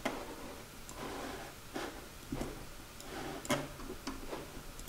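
Scattered sharp clicks of a computer mouse and keyboard, about half a dozen spread a second or so apart, as spreadsheet rows are selected and deleted.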